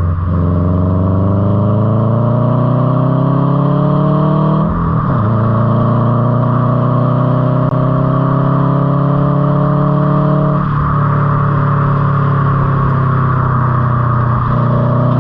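Car engine pulling through the gears: its pitch rises, then drops briefly at each shift, about 5 seconds in, again near 11 seconds and once more near the end.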